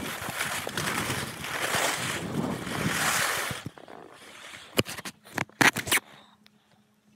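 Rushing wind and skis sliding over snow during a downhill ski run, sped up to double speed, cutting off suddenly about three and a half seconds in. A few sharp knocks follow near the end.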